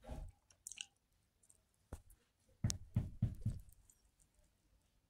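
Lip pops and mouth smacks of a man puffing on a lit cigar: a few scattered clicks, then a quick run of four or five puffs about three seconds in.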